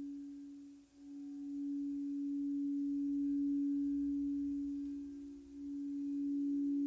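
A sustained pure humming tone, low and steady in pitch, that swells and fades in waves. It dips almost to nothing about a second in and again about five seconds in, with a fainter, slightly higher tone sounding above it.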